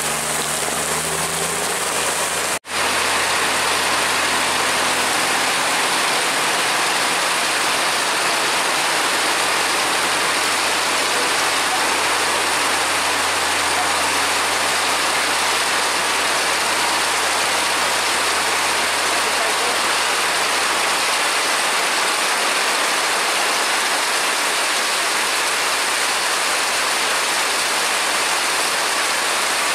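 Heavy rain falling steadily, with a truck engine running low underneath. In the first two seconds the engine's pitch rises, then the sound drops out for an instant.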